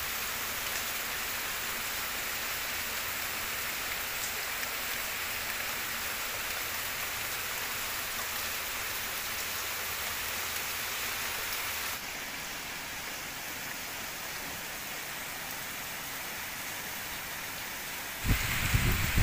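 Steady rain falling on palm fronds and tree foliage, an even hiss. It drops slightly in level about two-thirds of the way through, and near the end a louder, uneven low rumble comes in over it.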